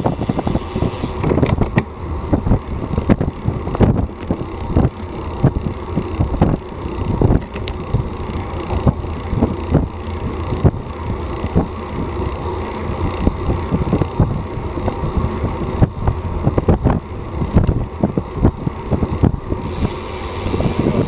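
Wind rumbling over the microphone of a bike-mounted Garmin VIRB action camera while riding a road bike at speed, mixed with tyre and road noise and frequent small knocks and rattles.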